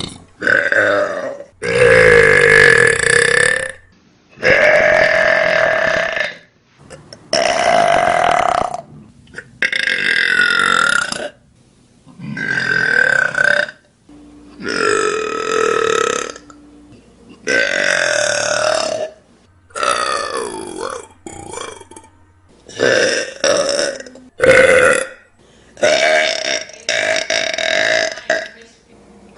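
A person burping loudly, one long drawn-out burp after another with short pauses between: about fifteen burps, most lasting one to two seconds, coming faster and shorter in the second half.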